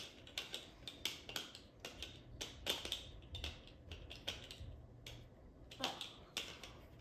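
Toy building blocks handled and picked through, giving light, irregular clicks and clacks, with the loudest a little under three seconds in and again near the end.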